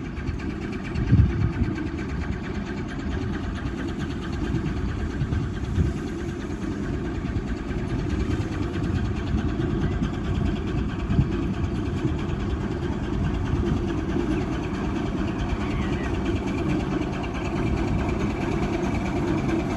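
Steam engine running with a steady low rumble, with a few louder thumps, the first about a second in.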